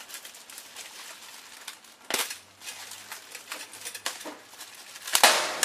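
Sticky tape being peeled and torn off a scooter rack light kit: a crackly run of small clicks and crinkles, with two louder tearing bursts, about two seconds in and near the end, the second the loudest.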